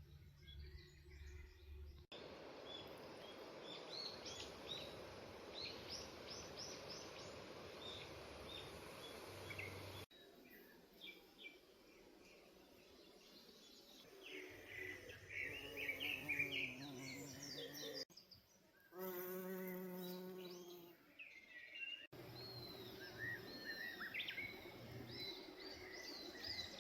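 Wild birds chirping and singing over a steady background hiss, heard in several short takes that cut in and out abruptly. One lower, drawn-out call stands out about two-thirds of the way through.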